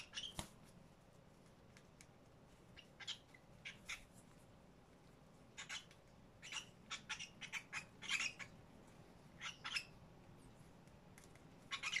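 Cockatiel giving short chirps and squawks in uneven clusters of quick notes, with pauses between them.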